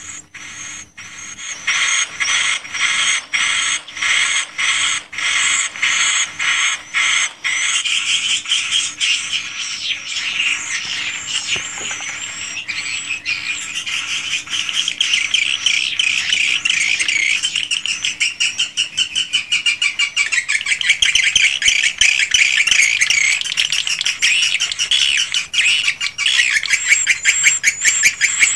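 Swiftlets twittering inside a swiftlet house: for the first seven seconds or so the chirps come in an even run, about two a second, then they turn into a dense, continuous chatter of many overlapping high calls.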